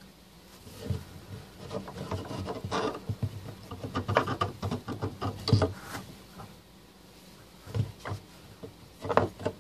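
A 3D-printed plastic base piece scraped, shuffled and knocked against the cardboard bottom of a barrel by hand as it is pushed into the centre. Irregular rubbing and clicks, with a pause about two-thirds through and more near the end.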